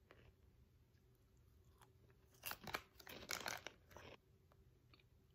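A person chewing crunchy food close to the microphone: a quick run of crisp crunches for about a second and a half, starting about two and a half seconds in.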